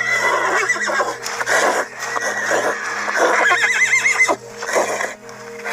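A horse whinnying twice, at the start and again about three seconds in, each call high and quavering, with short noisy snorts between.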